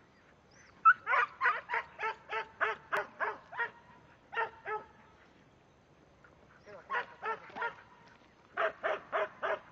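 Herding dog barking in quick runs of short barks, about three a second, with brief pauses between the runs, as it works and bunches a group of calves.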